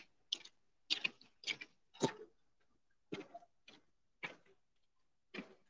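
Faint, scattered footfalls of cadets' boots marching past on a dirt track: short irregular steps and scuffs with brief quiet gaps between.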